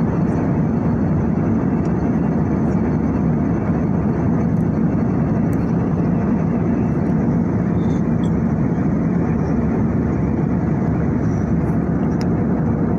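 Jet airliner in cruise flight heard from inside the cabin: a steady, even, low rushing drone of engines and airflow.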